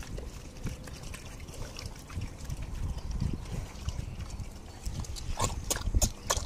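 A pig sucking up a watery mash of boiled produce and pig feed from a pan with its snout, slurping steadily, with a few sharper slurps near the end.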